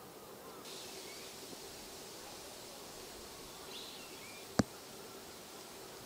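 A few faint, thin, high bird calls over a steady low hum, with one sharp click a little past halfway.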